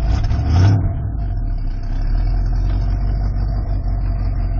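Carbureted 302 V8 of a 1986 Ford F-150, heard from inside the cab, running at low revs as the truck creeps forward in first gear. The sound is briefly louder about half a second in, then settles to a steady rumble.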